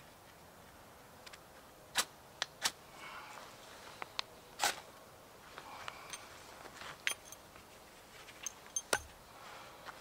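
Small fire of fibrous tinder being lit and catching in the top of a Swedish fire torch log: scattered sharp clicks and small pops over soft rustling.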